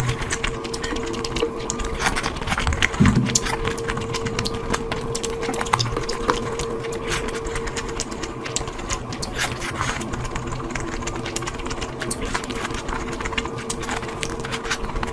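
Close-miked eating sounds: quick, irregular wet chewing and lip-smacking clicks of someone eating curry, over a steady faint hum.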